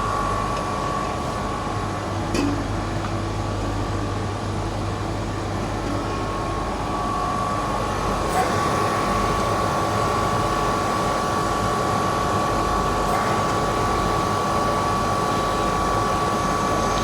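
Refrigeration chiller running with its newly fitted NJ9238GK high-back-pressure compressor during the final R404A gas charge: a steady machine drone with a constant high whine.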